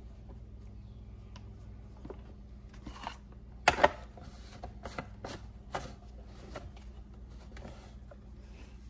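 Hands handling and reassembling the plastic housing of a Worx WG309 pole saw: scattered light plastic clicks and rubbing, with two sharp clicks close together near the four-second mark as the orange side cover is pressed onto the gear housing.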